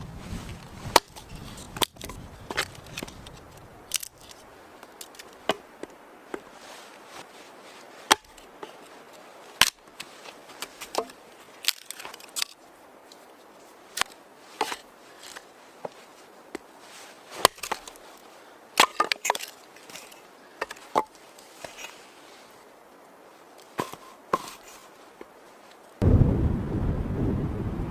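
Wood being chopped: a run of sharp, irregular knocks, about one every second or so. Near the end a loud, low rush of wind on the microphone comes in.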